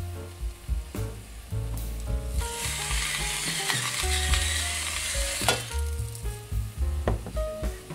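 Diced tomatoes and peppers sizzling in a frying pan, with a louder stretch of hissing and crackling in the middle.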